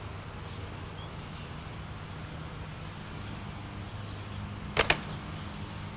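Steady low background hum, broken about five seconds in by two quick, sharp clicks close together.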